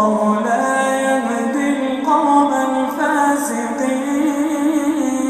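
A man reciting the Quran in melodic tajweed chant, holding long drawn-out notes that rise and fall slowly in pitch without a break.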